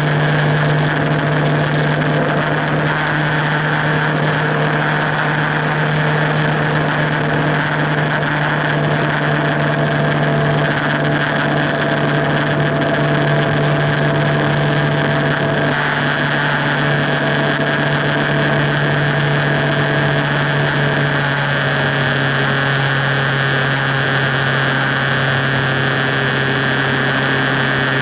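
Motorcycle engine running at a steady highway cruise, with wind and road noise. The engine note drops slightly about three quarters of the way through.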